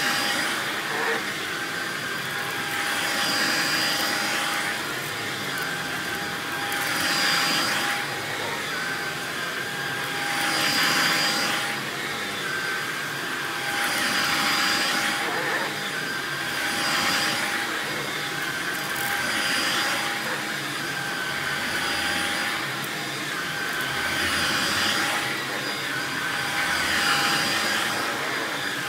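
Vacuum cleaner running with a steady motor whine while it is pushed back and forth over a shag rug, the suction noise swelling with each stroke about every three to four seconds as it picks up dirt and scattered rice.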